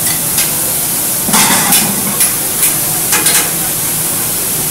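Food frying on a large round Mongolian-grill griddle: a steady sizzle, with the cooks' utensils scraping and clacking against the hot griddle as they stir and push the food around. The clatter comes in short sharp strokes, busiest about a second and a half in and again around three seconds in.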